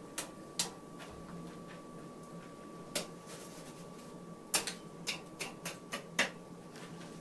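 Sharp metallic clinks and knocks of a blacksmith's poker working the coal forge fire, clearing clinker from the tuyere: a few scattered strikes, then a quick run of clinks between about four and six seconds in, over a steady hum.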